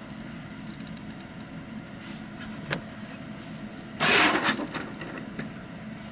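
Plastic Transformers toy vehicles handled on a tabletop: a light click about two and a half seconds in, then a half-second scrape about four seconds in as the toys are slid and turned on the surface.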